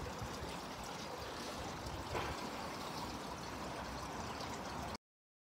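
Steady outdoor rushing noise with a low fluttering rumble, cutting off abruptly about five seconds in.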